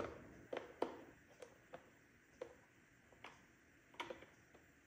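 Faint, irregular clicks and taps of a hand screwdriver turning a screw into the plastic housing of an iRobot Braava 380t robot mop, about eight sharp clicks spread unevenly through the few seconds.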